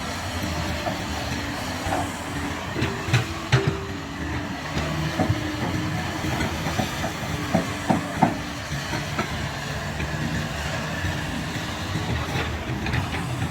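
Hydraulic excavator's diesel engine running steadily, with a few sharp metal clanks about three seconds in and again around the middle.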